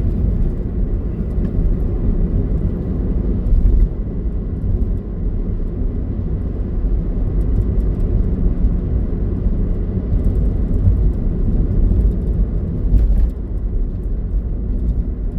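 Steady low rumble of travel noise, road or wind noise on the move, with a couple of brief bumps.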